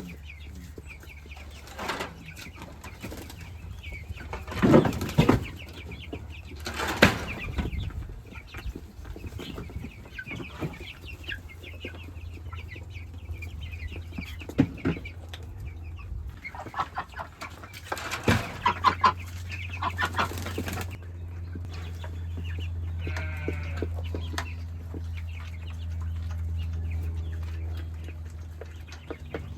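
Young chickens clucking, with bursts of wing flapping and several loud knocks. A low steady hum runs underneath and grows louder in the last third.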